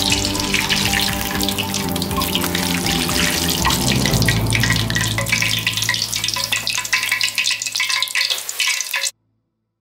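Hot oil sizzling and crackling in a wok as sesame-coated fried dough pieces are lifted out in a wire skimmer to drain. The sound cuts off abruptly near the end.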